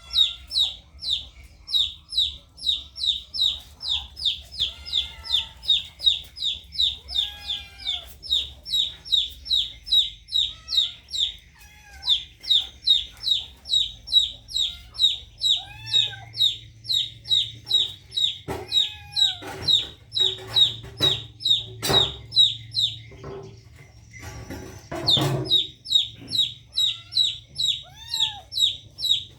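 Young fowl peeping steadily: high falling chirps repeated about three times a second, with a few lower rising-and-falling calls between them. A couple of sharp knocks come past the middle.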